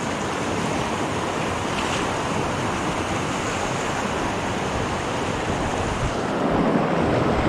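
Rushing whitewater of a river rapid in spring flood: water pouring over a low rock ledge and churning into foam, a steady rushing noise that grows a little louder about six seconds in.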